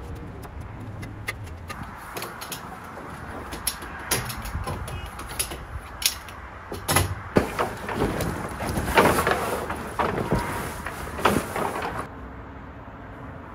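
Heavy canvas tent cover rustling and scraping as it is pulled and folded, with many sharp clicks and knocks of the tent's metal poles being handled. The rustling grows louder in bursts and cuts off suddenly near the end.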